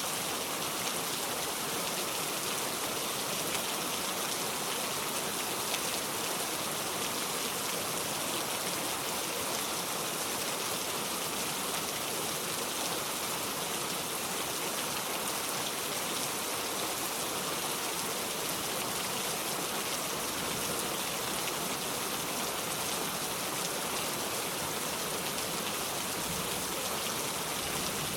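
Steady rain falling, an even hiss with no breaks or distinct drops standing out.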